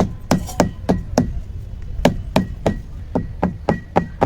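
Dry ginger (sukku) being crushed with a pestle: a steady run of sharp knocks, about three or four a second, each with a short light ring.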